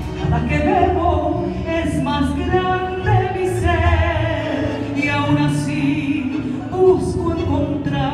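A woman singing through a microphone and PA over a recorded instrumental backing track.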